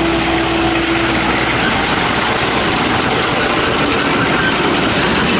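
Tractor engine running steadily, with a faint steady whine that stops about a second and a half in.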